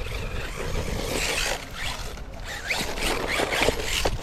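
A 1/16-scale electric RC car driving, its tyres scrabbling and scratching over the ground, with a few short rising motor whines from quick bursts of throttle.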